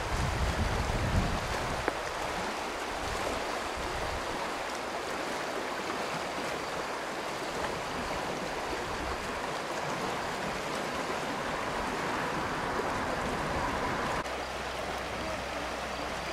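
Fast, shallow mountain river rushing steadily over its stony bed. There is low wind rumble on the microphone in the first couple of seconds.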